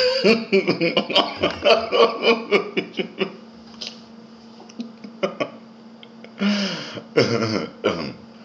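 A man laughing in a run of bursts, then a few more short bursts of laughter near the end, over a steady low electrical hum.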